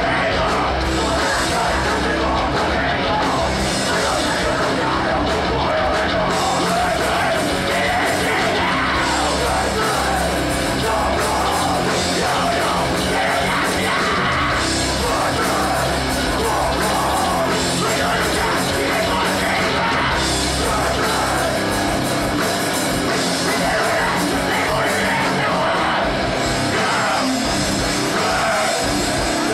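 Live rock band playing, with shouted vocals over the instruments.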